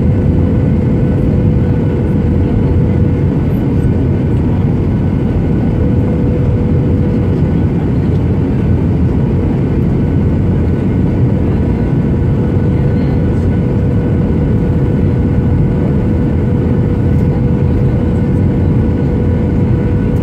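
Steady cabin noise of a Boeing 737-800 on short final approach: the rush of airflow and its CFM56-7B turbofans at approach power, with a faint steady hum running through it.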